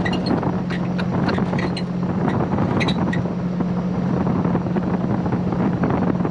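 Supercharged GM 3800 V6 of a Pontiac Fiero race car running at a steady cruise, its note holding level. Wind rushes in through the open frame where the windshield is missing, with scattered light clicks over it.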